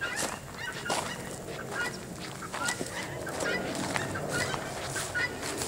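Poultry calling repeatedly in short, high, honking calls, several every second, with footsteps crunching on gravel and grass.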